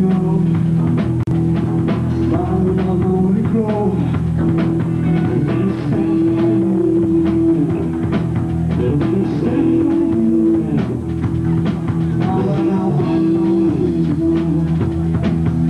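Live rock band playing: electric guitar, bass guitar and drum kit, with held guitar notes over a steady drum beat.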